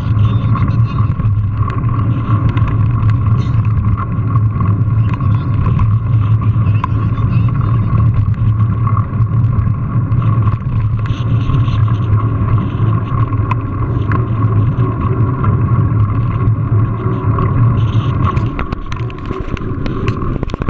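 Steady rolling rumble and hum of a mountain bike riding on pavement, recorded by a GoPro on the bike, with small clicks and rattles from bumps. It eases off slightly near the end.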